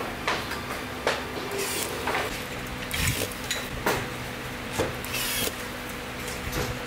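Workbench assembly sounds: irregular clinks and taps of small metal screws and parts being handled, with a few short hissing bursts, over a steady machine hum.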